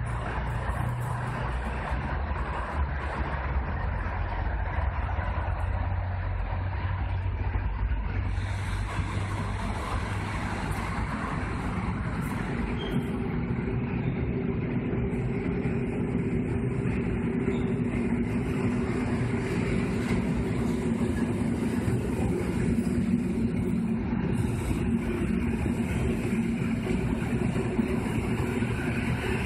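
Electric multiple unit passenger train pulling into the station and running along the platform: a steady rumble of the approaching train, joined about halfway through by a steady low motor hum as it comes close and rolls past.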